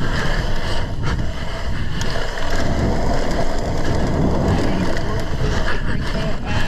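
BMX bike being raced on a dirt track: tyres rolling over packed dirt and wind rushing over the microphone, with a few short knocks.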